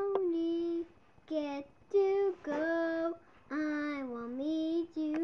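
A young girl singing unaccompanied in short phrases, holding long notes and letting some glide down and back up, with brief pauses between phrases.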